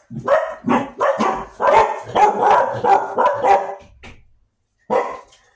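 A dog barking repeatedly in a quick run of barks for about four seconds, then one more bark near the end.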